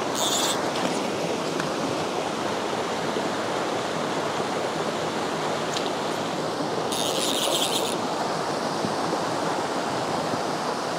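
Steady rush of a mountain trout stream's flowing water. Two brief higher-pitched rasping sounds come over it, one at the very start and a longer one about seven seconds in.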